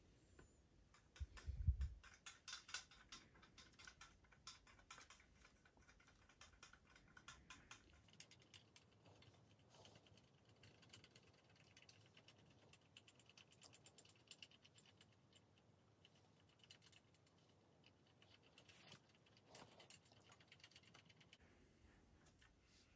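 Small metal hand-crank flour sifter shaken to dust flocking fibres onto a decoy: a faint, rapid rattle of light clicks, busiest in the first several seconds and sparser after. A soft thump about a second and a half in.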